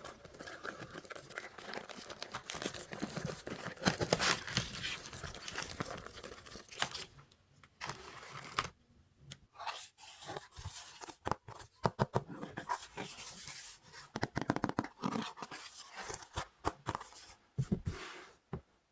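Toy packaging being torn open and crinkled, with dense crackling for the first several seconds, then scattered rustles and clicks.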